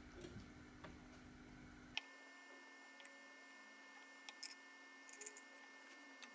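Near silence: faint room tone with a steady low hum, a single click about two seconds in and a few faint ticks after it.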